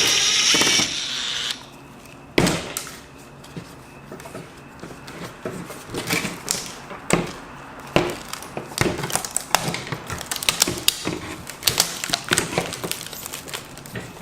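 Laptop display parts being handled and worked apart by hand and with small tools: scattered plastic clicks, taps and knocks that come thicker toward the end, after a brief noisy burst at the start.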